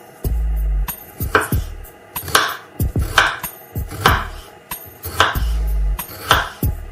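Kitchen knife slicing a peeled raw potato into thin rounds on a wooden cutting board, a crisp cut and a knock on the board about once a second.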